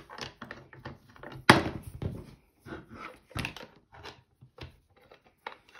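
Knocks and clicks of a metal hand press and its steel dies being handled and set down on the work surface, with one sharp thunk about a second and a half in and another knock near the middle.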